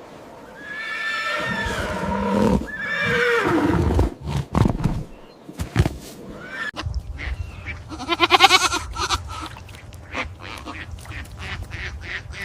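Animal calls: two drawn-out calls that fall in pitch, then scattered clicks and a loud quavering call about eight seconds in.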